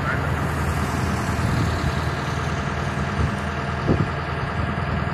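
Steady low engine hum, with one brief knock about four seconds in.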